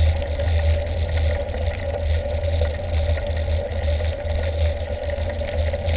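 Mountain bike rolling along a paved lane, heard from a handlebar-mounted camera: a steady low rumble with a constant hum above it.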